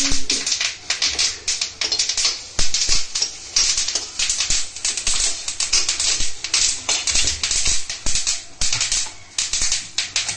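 Muskmelon seeds crackling and popping as they fry in hot ghee in a steel kadhai: a fast, irregular patter of sharp little cracks.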